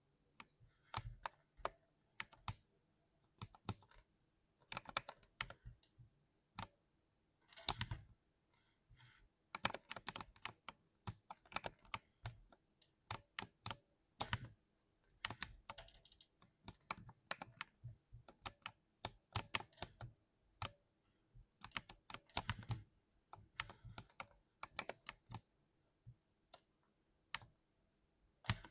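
60% mechanical keyboard being typed on: irregular runs of key clicks and thocks with short pauses between bursts.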